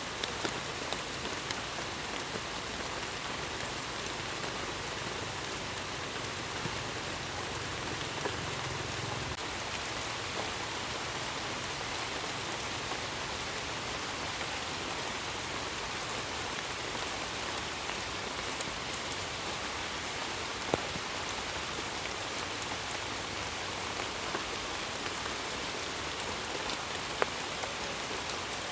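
Steady rain falling in a forest: an even hiss of drops on leaves, with now and then a single louder drop striking close by.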